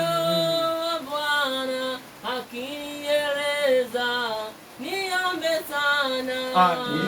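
A Swahili worship chorus sung by women's and men's voices together, with long held notes that slide from one pitch to the next.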